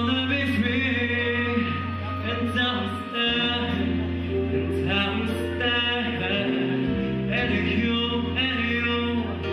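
Male vocalist singing live into a handheld microphone over instrumental accompaniment with deep, held bass notes. The bass note changes about three seconds in and again near seven seconds.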